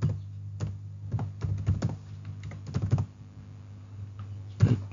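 Typing on a computer keyboard: irregular keystrokes in quick runs, a pause, then one louder stroke near the end, over a steady low hum.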